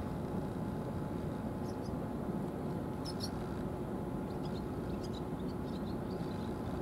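A steady low rumble with a faint even hum, with short high chirps from small birds about three seconds in and again in a quick string between about four and a half and six and a half seconds.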